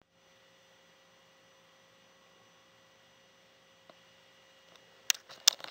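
Faint steady electrical hum with a few thin high tones. Near the end come two sharp knocks of the camera being handled.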